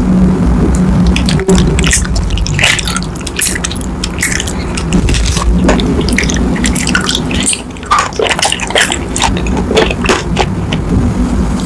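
Close-miked wet, sticky food sounds: many irregular clicks, squishes and drips, over a steady low hum.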